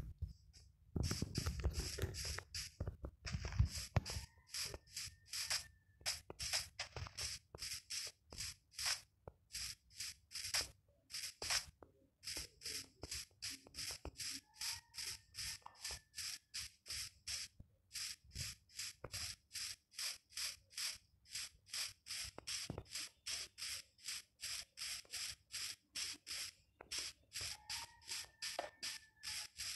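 Steady back-and-forth scraping strokes of a hand tool working wood, about two or three strokes a second. A few heavy knocks come in the first few seconds.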